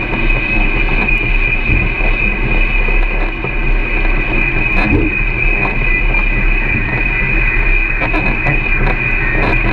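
Camera drone's motors and propellers running, a steady rushing drone with a constant high-pitched whine.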